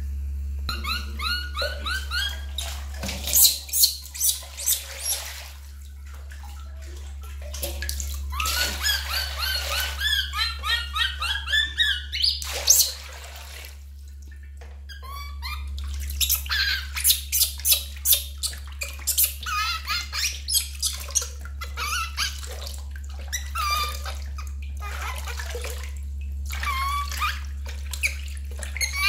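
Infant macaque crying in bouts of short, high-pitched calls several per second, with pauses between the bouts. Water splashes and sloshes in a steel basin as the monkey is washed by hand.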